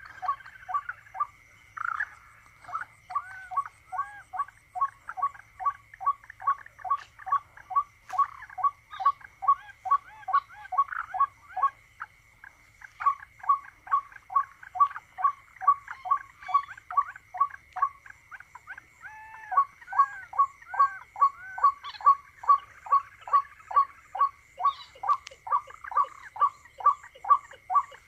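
A long run of rapid, regular animal calls, about three a second, with two short breaks, over a steady high-pitched tone.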